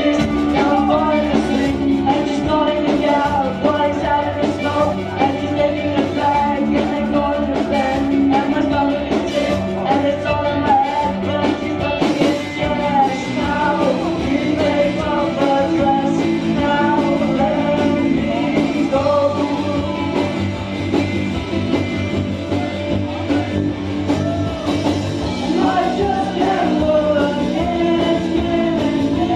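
Live rock band playing: electric guitars, bass guitar and drums, with a young male singer singing lead into a microphone.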